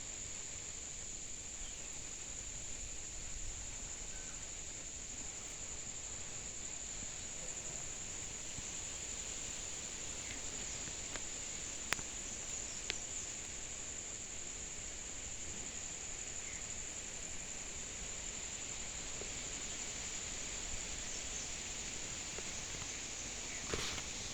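Insects chirring outdoors in one continuous, steady high-pitched drone, with a few faint clicks.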